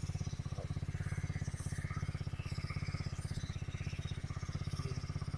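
Honda CRF125 dirt bike's single-cylinder four-stroke engine idling steadily with an even, rapid pulse, run after a fresh oil change.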